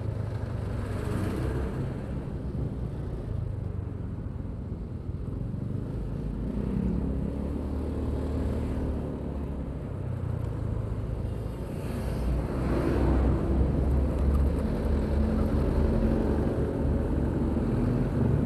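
Onboard sound of a motorcycle riding in traffic: its engine running steadily under road and wind noise, among large trucks. It grows louder about two-thirds of the way through.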